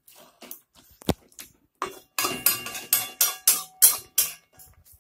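A spatula scraping and clanking against a kadhai (wok) while stirring chicken pieces, with a quick run of strokes in the second half and the pan ringing faintly. A single low knock about a second in.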